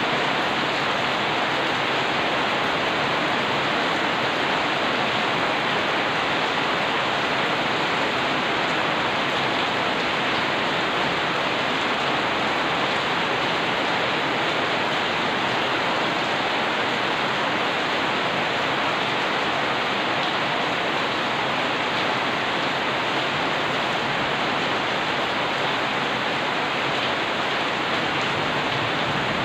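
Rain falling steadily, a loud, even hiss with no thunder.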